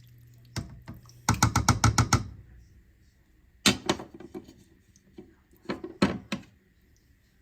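Kitchenware being handled at the stove: a knock, then a quick run of about eight sharp taps, then a few scattered knocks.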